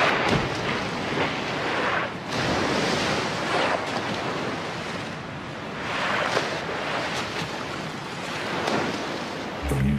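Sea water rushing and splashing at the surface as bottlenose dolphins porpoise through the waves, the noise surging every second or two.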